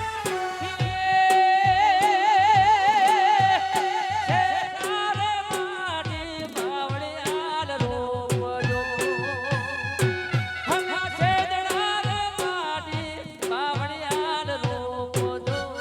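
Gujarati folk raas music: a melodic lead line with wide vibrato over a steady drum beat, its held notes loudest a couple of seconds in.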